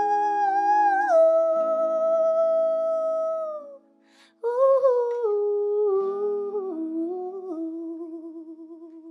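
A woman's voice singing long wordless held notes over ringing acoustic guitar chords, with a short break for breath partway through. The notes then step down in pitch with vibrato and fade away as the song ends.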